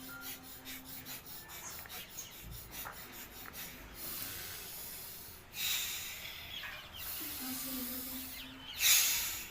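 A person breathing hard: quick, evenly spaced rasping breaths for the first few seconds, then a few longer, louder breaths, the loudest near the end.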